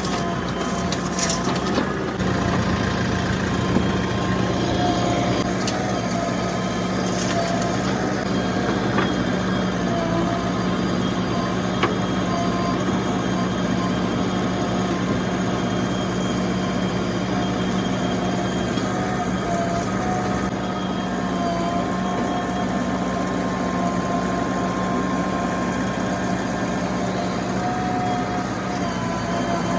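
Heavy diesel engine running steadily at an even pitch, with a few brief clicks.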